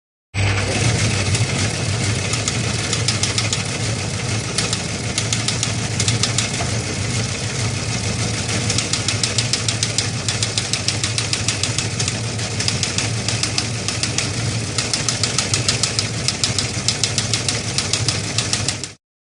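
A steady, rapid mechanical clatter over a low hum, which cuts off suddenly near the end.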